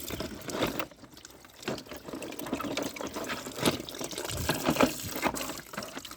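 Water running and splashing over a small toy car as it is rinsed, with uneven splashes and drips.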